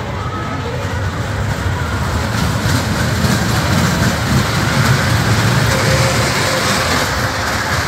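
Small dragon-shaped fairground roller coaster running on its steel track, its wheels rumbling and rattling. The rumble swells as the train passes close, about three to six seconds in, then eases off.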